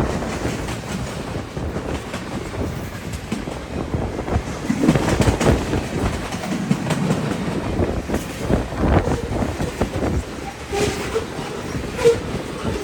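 Freight cars rolling past, their wheels clacking over the rail joints in an uneven, continuous run of knocks.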